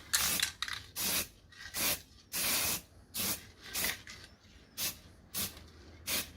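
Aerosol can of matte black paint spraying a guide coat onto filler in about nine short hissing bursts, one of them longer, about half a second, midway.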